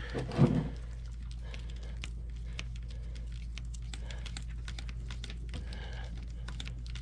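Light, irregular clicks and taps of small parts and hand tools being handled while an RC truck axle is fitted, over a steady low hum. A brief louder knock comes about half a second in.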